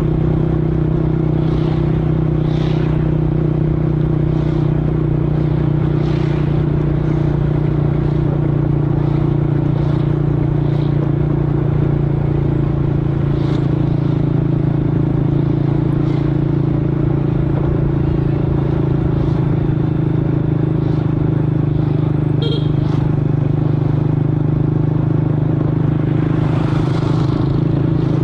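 Scooter engine idling steadily at an even pitch, with a few faint light clicks over the top.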